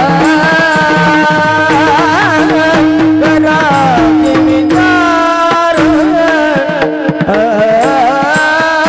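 Male voice singing a Varkari kirtan melody with long held notes and ornamented glides, over a steady tanpura drone, with small brass hand cymbals (taal) struck in rhythm.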